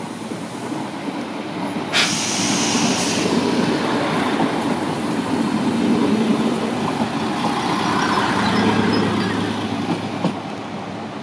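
DB class 648 diesel multiple unit pulling into the platform, with engine and wheel noise that swells as it passes and eases near the end. A sudden hiss starts about two seconds in and lasts about a second.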